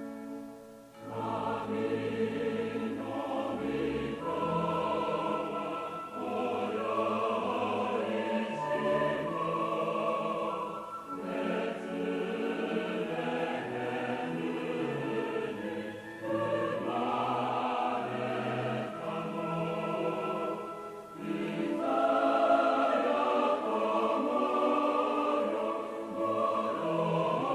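A choir singing a Christmas hymn, coming in about a second in after a fading bell-like ringing tone, with short breaks between phrases.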